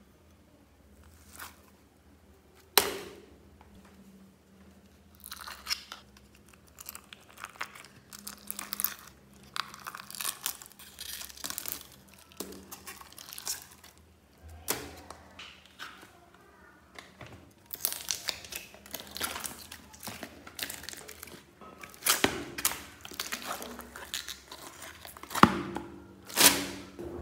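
Old slime being scraped and tipped out of plastic tubs into a bin lined with a plastic bag: crinkling plastic and crunchy, sticky slime noises, with irregular sharp clicks and taps from the containers.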